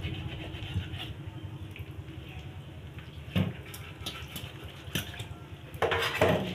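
Knife and hands working raw pork at a kitchen sink: a scatter of sharp knocks and clatters against the counter and basin, the loudest cluster near the end.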